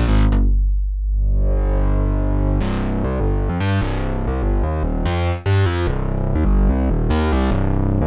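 Sequential OB-6 synthesizer playing a bass patch. A held low note turns dull in the first second, then slowly brightens again. From about a third of the way in, a rhythmic line of short bass notes with bright attacks plays.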